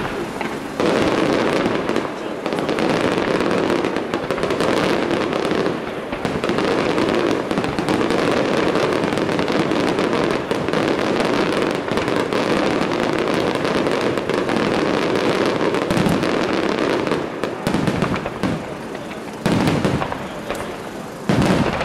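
Aerial fireworks display: a dense, continuous barrage of rapid crackling and popping reports, followed near the end by a few separate louder bangs as bigger shells burst.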